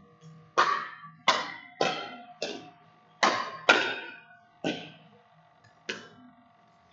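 Pickleball rally: paddles striking a hard plastic pickleball, about eight sharp pops over five seconds at an uneven pace, each echoing in the gym.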